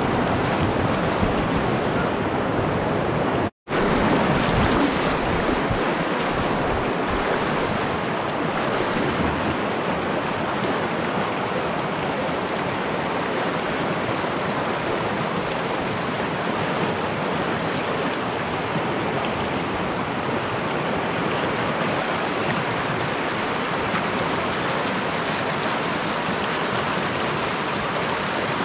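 Steady rush of whitewater from a boulder-strewn river rapid, water pouring over and around rocks close by. The sound cuts out completely for a fraction of a second about three and a half seconds in.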